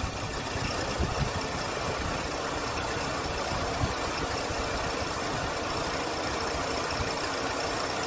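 Renault Samsung New SM5's four-cylinder DOHC 16-valve engine idling steadily with the air conditioning running. The accessory belt makes no grinding or squeal now that its tension has been adjusted.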